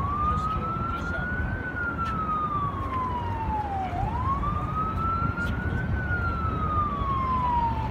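Emergency vehicle siren in a slow wail, its pitch rising and then falling more slowly, about four seconds per cycle, twice. Under it runs a steady low rumble of city background noise.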